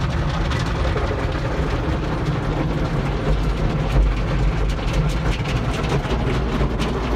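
Automatic car wash tunnel equipment heard from inside the car: steady low rumble with a dense wash of spray and brush noise against the body during the triple foam stage.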